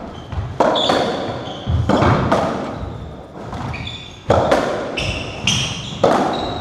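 A racketball rally on a squash court: the ball is struck by rackets and hits the walls in a string of sharp impacts that echo off the court, with high squeaks from players' shoes on the wooden floor between them.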